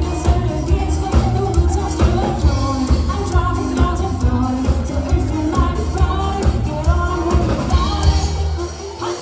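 Live pop band music: a singer's melody over a heavy drum and bass beat. Near the end the drums and bass drop out for a moment.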